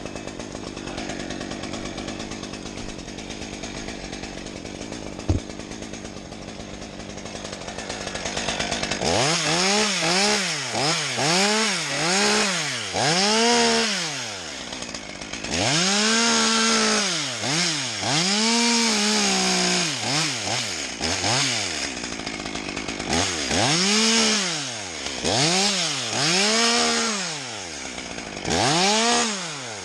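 A small engine revving up and down over and over, its pitch rising and falling about once a second, starting about nine seconds in after a stretch of steadier, quieter running.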